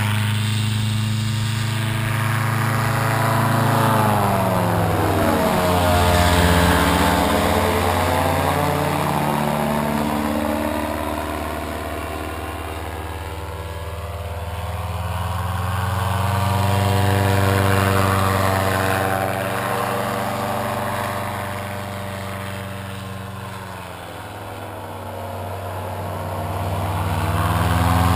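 Paramotor's two-stroke engine and propeller droning as the paramotor flies low past, growing louder and fading again, the pitch dropping as it passes about five seconds in and again near the end.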